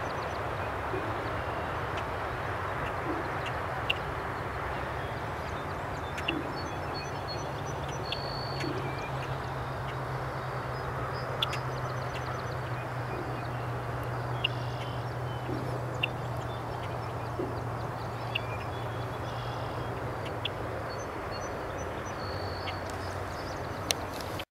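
Marsh ambience: a steady rushing background with a low engine drone through the middle, and scattered short calls of red-winged blackbirds, including brief high trills about eight seconds in and near the end.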